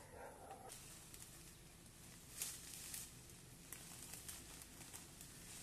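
Faint rustling and crackling of leaves and brush as someone pushes through dense ferns and undergrowth, with brief swishes about two and a half, three and four seconds in.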